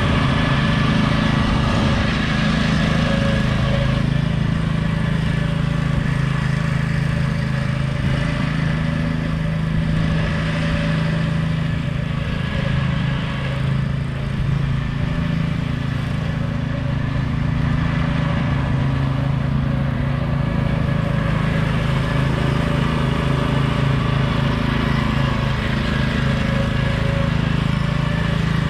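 Troy-Bilt riding lawn mower's engine running steadily while mowing, dipping briefly about halfway through before settling back.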